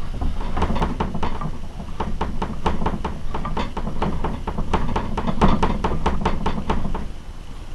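Boring bar of an HP 106 high-pressure hot tapping machine being wound out by hand: a run of quick clicks, several a second, that stops about seven seconds in.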